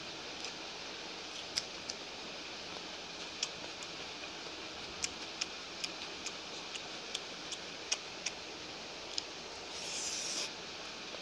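Eating biryani by hand: scattered small clicks and smacks of chewing and of fingers working the rice on the plate, over a steady hiss, with a brief louder burst of noise about ten seconds in as a mouthful goes in.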